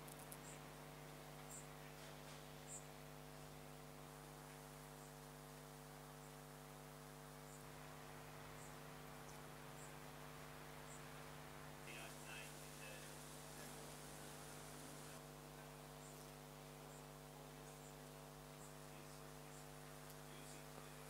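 Faint, steady electrical hum made of several unchanging tones, with a few faint high ticks.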